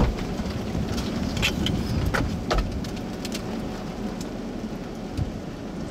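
Steady low rumble of a vehicle and wind in the open air, with a few sharp ticks at about one and a half, two and two and a half seconds in.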